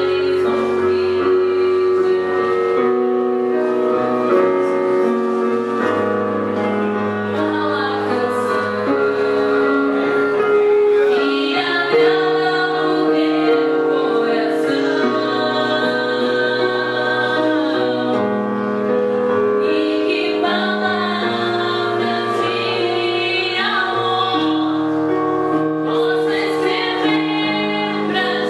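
Gospel praise song: a woman singing over long, held instrumental chords.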